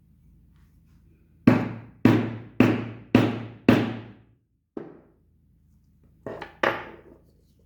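Hammer blows in leatherwork: five strong strikes about half a second apart, then a single lighter one, then two more close together near the end, each dying away quickly.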